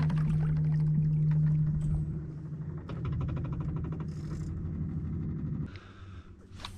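Small boat outboard motor running steadily, then settling after about two seconds into a lower, rapidly pulsing run. It drops quieter near the end.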